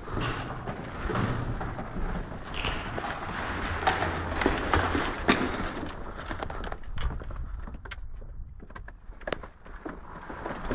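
Footsteps, kit rustle and rattling gear of a team in combat kit moving up concrete stairs, with scattered sharp clicks and knocks, the sharpest pair about halfway through.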